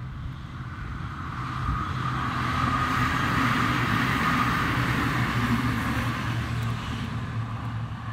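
Electric narrow-gauge railcar passing by: its rumble on the rails grows louder over the first few seconds, peaks mid-way and then fades as it moves off, with a steady whine and a low hum throughout.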